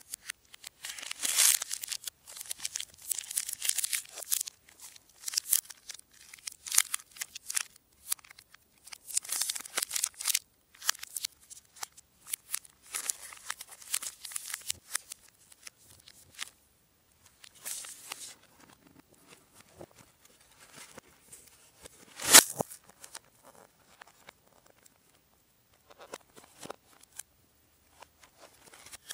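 Plastic wrapper of a Nutella B-ready bar crinkling and tearing under the fingers, with handling of its cardboard box, heard played backwards. Irregular crackles, busiest in the first half, and one sharp snap about two-thirds of the way through.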